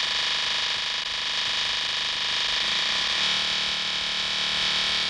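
A dense electronic drone of many steady, distorted tones sounding together. About three seconds in, a lower tone comes in underneath and the texture shifts.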